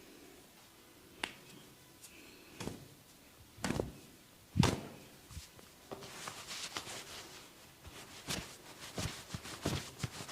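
Percussive hand strokes of a barber's massage: a few separate sharp slaps, the loudest about halfway in, then a quick run of rapid taps.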